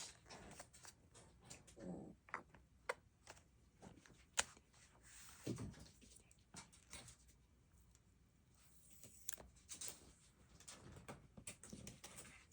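Quiet desk handling sounds: scattered light clicks and taps with a few short rustles, as of stationery and planner pages being handled, with one sharper click about four seconds in.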